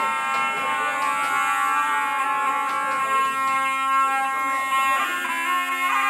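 Zurla, the loud double-reed folk shawm, playing long, piercing held notes over a steady lower drone, with strokes on a large two-headed lodra drum. The melody moves to new notes near the end.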